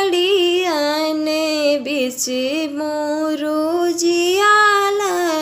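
A woman singing a Bundeli tilak wedding song (vivah geet) unaccompanied, in long drawn-out notes with bending, ornamented turns.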